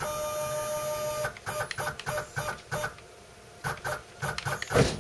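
PM-25 CNC mill's 570 oz-in NEMA 23 stepper motors driving the ball screws. An axis moves with a steady pitched whine for just over a second, then comes a string of short jogging pulses. A louder knock sounds near the end.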